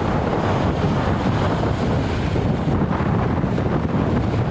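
Strong wind buffeting the microphone, a steady low rumble over the sound of surf washing onto a sandy beach: the gusty wind ahead of an arriving summer thunderstorm.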